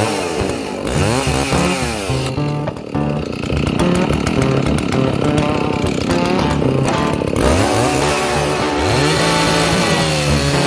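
Husqvarna Model 61 two-stroke chainsaw at full throttle, cutting through a dry spruce round with a freshly sharpened chain. Its engine pitch repeatedly sags and recovers as the chain works through the wood.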